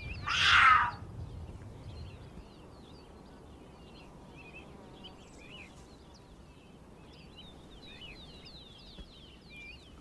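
A puma gives one short, breathy call about 0.7 s long at the start, the sort a mother uses to call hidden cubs out of cover. After it there are only faint, high, scattered chirps.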